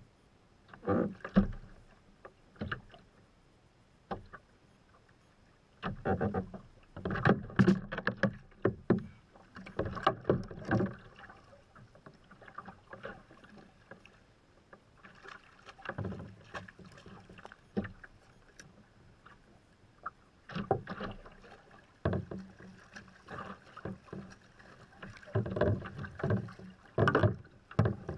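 Water splashing and knocking against a fishing kayak's hull, with irregular bumps and thuds in uneven clusters.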